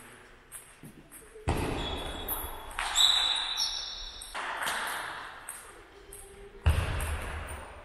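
Table tennis rally in a gym hall: light clicks of the celluloid ball off bats and table, with a short squeak about three seconds in. Two sudden loud sounds ring on in the hall, one about a second and a half in and one near the end, as the point finishes.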